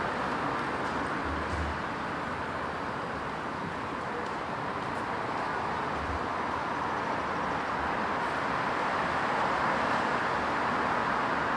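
Steady city street ambience: a constant wash of distant traffic noise with no distinct events.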